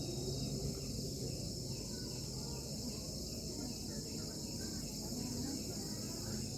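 Crickets chirping in a steady, unbroken high-pitched chorus, over a low background rumble.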